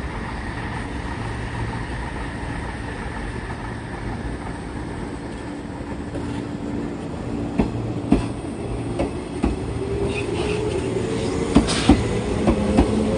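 A 185-series electric train running, with a steady low rumble and wheels clicking over rail joints, the clicks coming more often toward the end. A tone rises slowly in pitch over the last few seconds.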